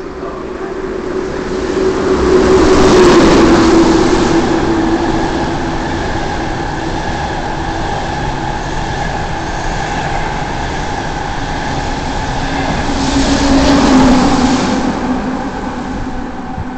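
A train going by along a platform in an underground station, with a rumble and a steady humming tone. The noise is loudest about three seconds in and again about fourteen seconds in, as the two ends of the train pass, then fades.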